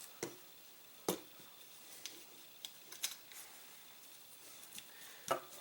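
Faint, scattered clicks and light knocks, about six of them, from a Taurus/Rossi Circuit Judge revolving rifle being handled while oil is wiped onto its metal.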